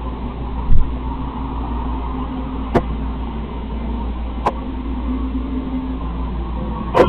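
Wyze robot vacuum running with a steady motor hum, with three sharp clicks spread through.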